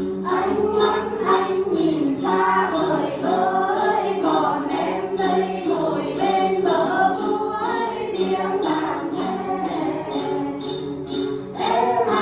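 Voices singing a song over sustained accompaniment, with bells jingled in a steady beat about two to three times a second.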